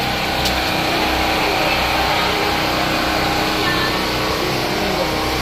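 An engine running steadily and fairly loud close by, with a constant hum and a pulsing low rumble.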